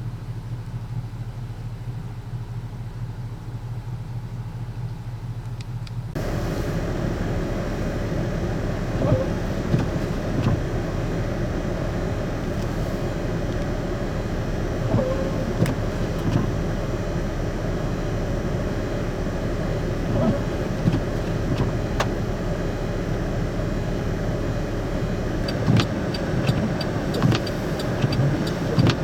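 Car running on the road, a steady low hum that about six seconds in turns suddenly louder and rougher, with scattered knocks and thumps.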